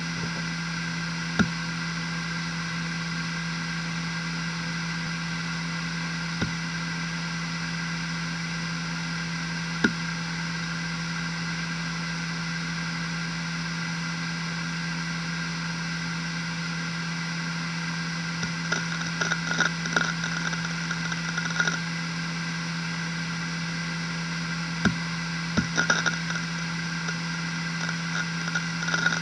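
Maxtor Atlas 10K V 300GB four-platter hard drive spinning at 10,000 rpm, a steady hum with a whine above it. A few single head-seek clicks come in the first ten seconds, then irregular seek clicking from about 18 seconds in as the drive is read during the Windows boot.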